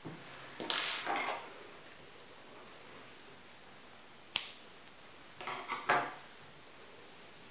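Crocheted yarn hat handled and turned over on a wooden tabletop, a short rustle about a second in. A single sharp click about four seconds in, the loudest sound, then a quick few small knocks near six seconds as the hat is set down.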